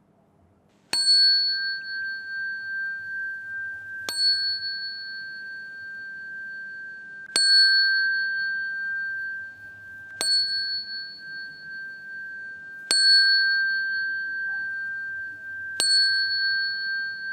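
Small Buddhist bowl bell (qing) struck six times, about every three seconds, each stroke leaving a clear, high ringing tone that carries on to the next. The strokes mark the bows of the closing bow to the Buddha.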